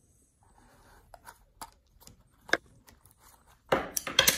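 A small cardboard box for a die-cast model car being handled on a table: scattered soft taps and scrapes, then a quick flurry of louder scraping and clicking near the end.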